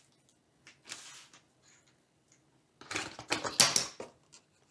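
Plastic packaging bag crinkling and small plastic parts clicking against a tabletop as ring-light mount pieces are handled: a brief faint rustle about a second in, then a louder run of crackles and clicks near the end.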